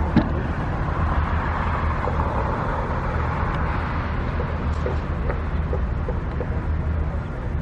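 Road traffic noise: a steady low rumble, with the sound of a vehicle swelling and fading about one to four seconds in.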